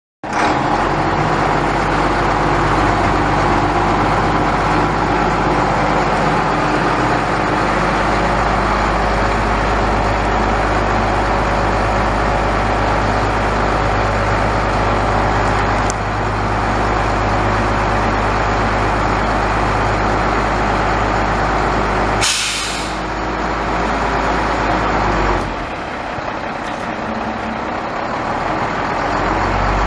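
International DT466 7.6-litre inline-six diesel idling steadily, with a short sharp burst of compressed-air hiss from the air brake system about 22 seconds in. The engine sound is quieter for a few seconds after the hiss, then builds back.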